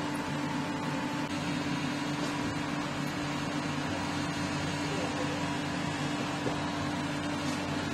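Steady mechanical hum with a constant low tone.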